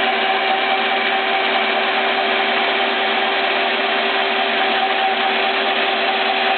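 Stanko 6T10 vertical milling machine running with an end mill cutting 10 mm steel plate on a rotary table, the spindle at 560 RPM. A steady machining whine with two held tones over a rough cutting noise, unchanged throughout.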